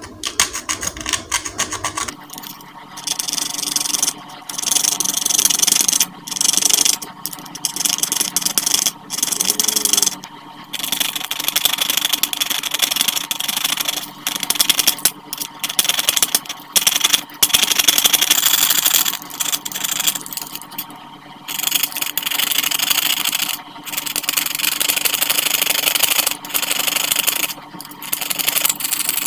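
A small flat metal tool scraping rust off a toy RC car's corroded battery terminal contacts, in repeated rasping strokes a second or two long with short pauses between. The rusted terminals are what kept the car from working.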